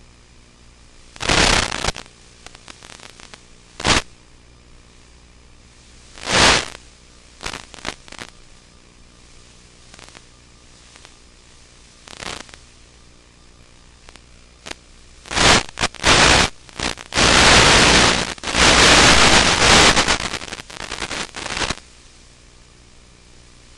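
Radio static from an analog FPV video link: sudden bursts of hiss and crackle, several short ones, then a dense stretch of several seconds near the end, over a faint steady hum.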